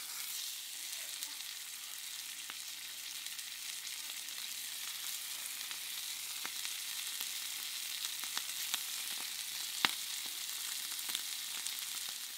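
Muntjac venison steaks searing in hot olive oil in a frying pan: a steady sizzle with scattered spits and crackles, and one louder pop late on.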